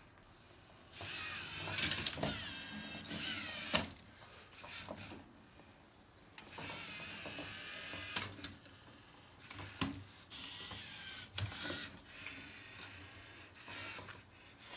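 LEGO Mindstorms robot's motors whirring in spurts as it drives and works its attachments, with clicks and knocks of LEGO parts striking the mission models. The whirring stops and starts several times, with short quiet gaps between moves.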